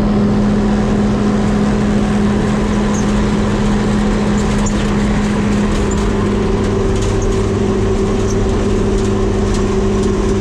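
New Holland baler's engine running steadily under way on the road in third gear, a loud, even drone with no change in pitch.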